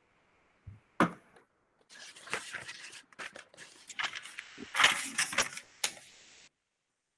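Handling noise picked up by a video-call microphone: a sharp click about a second in, then several seconds of rustling and clicking that cuts off abruptly.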